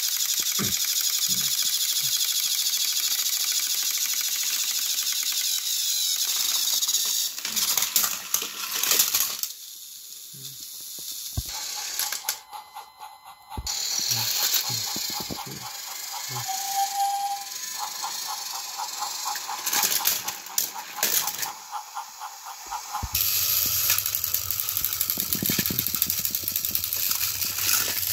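Battery-powered motorised toy train engines running on plastic track: the steady high whir of small motors and gears, broken by clicks and knocks. Through the middle a thin steady tone runs with fast ticking.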